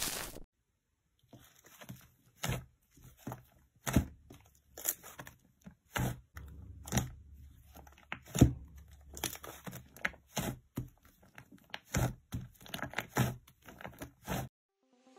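Hands kneading and pressing a large mass of slime, giving irregular sharp squishing clicks and crackles.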